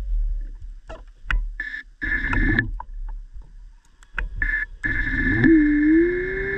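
Diver propulsion vehicle (underwater scooter) motor heard underwater: a few short bursts and sharp clicks, then about five seconds in the motor spins up with a rising whine and runs steadily.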